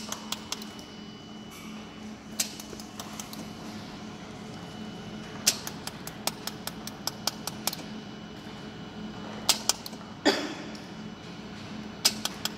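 Pulsed jewelry laser welder firing on a metal piece: sharp snapping ticks in irregular runs of several a second, over a steady hum from the machine.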